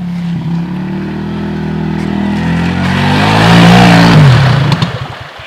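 ATV engine revving hard as it churns through deep mud, climbing to its loudest about three and a half seconds in. Near the end it drops in pitch, sputters unevenly and cuts out: the engine stalls in the mud.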